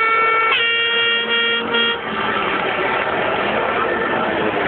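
A horn sounding in long, steady blasts over the noise of a racetrack grandstand crowd. The horn breaks off briefly twice and stops about two seconds in, leaving the crowd noise.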